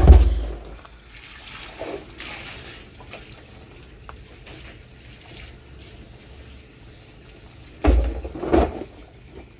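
Rinse water sloshing inside a plastic drum as it is rolled and tipped, with heavy hollow thumps from the drum at the start and twice about eight seconds in as it is stood upright.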